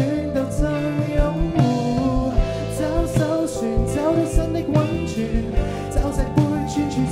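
Pop-rock band music with a steady drum beat and a singing voice.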